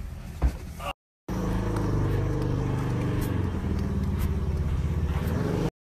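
Motor vehicle engine running at a steady speed, with a few faint clicks, after a brief cut to silence about a second in.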